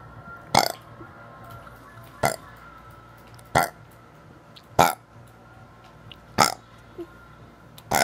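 A boy burping over and over, six short burps about a second and a half apart.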